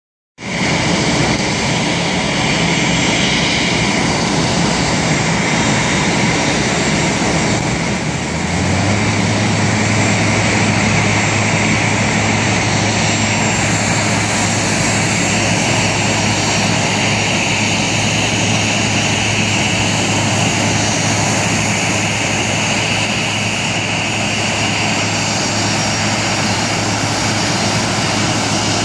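Jet airliner engines running steadily at taxi idle. A steady low hum joins about eight seconds in.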